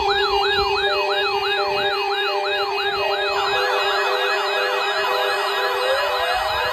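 Several electronic siren sounds layered together: a siren sweeping down and up about two to three times a second over a steady tone and an on-off beep. About three seconds in, a second, faster sweeping siren joins in, and rising glides start near the end.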